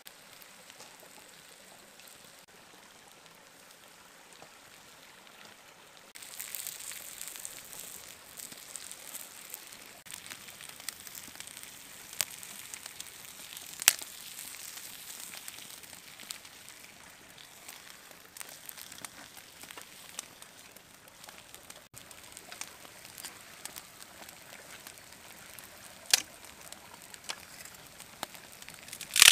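Lamb ribs and potatoes sizzling on a fire-heated flat stone: a faint hiss at first, louder from about six seconds in, with a few sharp taps as food and metal tongs meet the stone.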